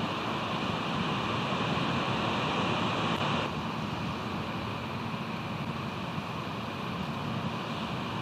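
Steady rush of ocean surf and wind on an outdoor microphone, with no calls; the hiss turns a little duller about three and a half seconds in.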